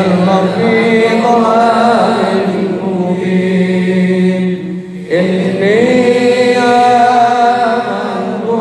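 Solo religious chanting in long, drawn-out melodic phrases, with a steady low drone underneath. There is a brief breath break about five seconds in, after which a new phrase begins.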